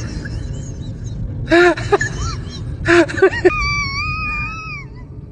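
High-pitched voice in short breathy bursts, twice, then one long held squeal that falls off at the end, over a steady low background rumble.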